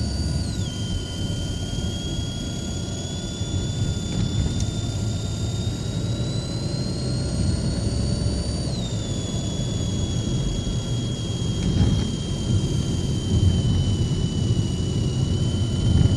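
A high, thin whistle, like a boiling kettle, from a car's passenger-side air-conditioning vent, heard over the low rumble of the moving car. The whistle drops in pitch just after the start, climbs slowly, drops sharply again about nine seconds in, then holds steady. The fault comes and goes: its pitch follows the throttle, it is worse with strong vibration, and it disappears when the engine is restarted.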